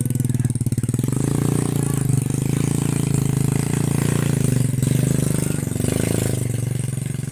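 An engine running steadily with a fast, even firing pulse.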